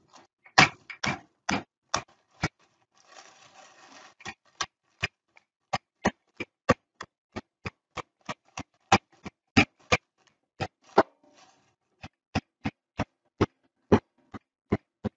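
Wooden rolling pin whacking graham crackers in a zip-top plastic bag, crushing them to crumbs: a run of sharp knocks, two or three a second, with a few short pauses.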